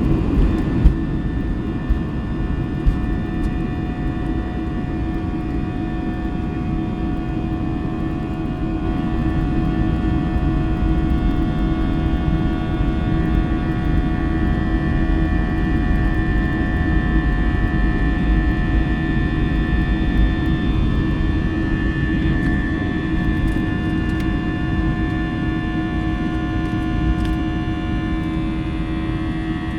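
Jet engine and airflow noise heard inside an Airbus A320 cabin: a steady drone with several held tones, rising a little about nine seconds in. A few light clicks sound in the first three seconds.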